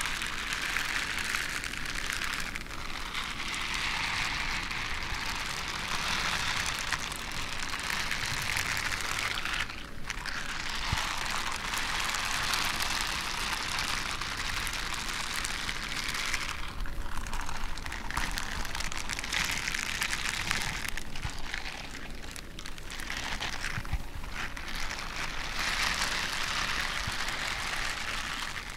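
Black leather gloves rubbed together close to the microphone: a continuous crackling, rustling rub that pauses briefly a few times.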